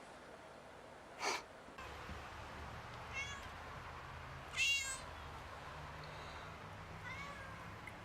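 Cats meowing: a few short pitched meows, the loudest about halfway through, with a brief harsher, noisier sound about a second in.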